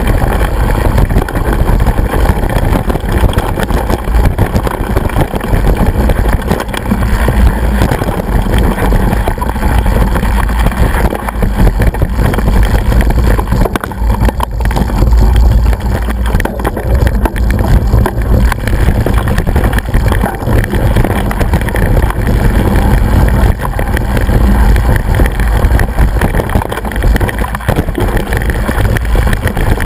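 Loud, steady wind rumble and rattle on the microphone of a camera mounted on a mountain bike riding over a rough hill trail.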